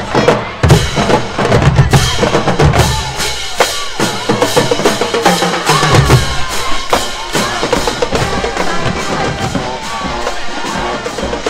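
A marching band's drumline playing in the stands: bass drums and snare drums beating a driving rhythm, heaviest in the first few seconds.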